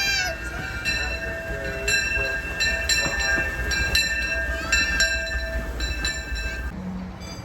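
Disneyland Railroad steam train rolling along, a low rumble under a steady high-pitched ringing tone with a few brief squealing glides; the tone and rumble cut off sharply near the end.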